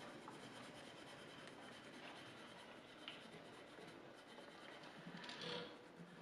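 Faint rubbing of a small applicator mop working lemon oil into a banjo fretboard, with a slightly louder swipe about five seconds in.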